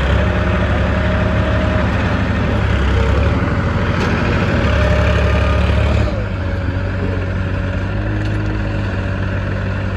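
Heavy diesel engine running loud and close, working harder for a few seconds in the middle, then easing to a steadier, lower level about six seconds in.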